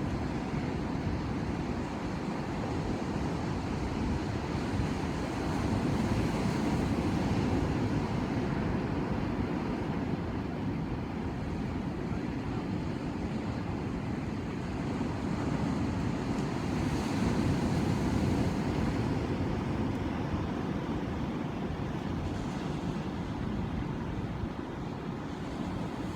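Ocean surf: waves breaking and washing in as a continuous rush of noise that swells a little about six seconds in and again around seventeen seconds.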